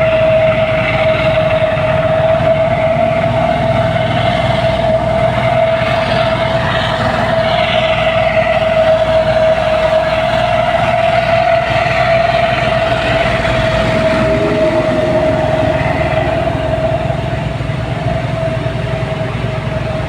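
Heavy diesel machinery running steadily under load: a low engine rumble with a strong, steady high-pitched whine over it.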